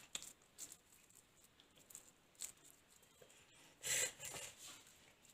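Hands pressing and shaping a soft mixture of mashed potato and shredded chicken into cutlets, a faint scattered rubbing and squishing with small clicks, and one louder rustle about four seconds in.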